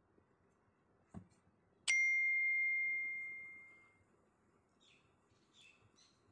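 A single bell-like ding: a clear chime that strikes suddenly and rings out, fading over about two seconds, just after a soft knock.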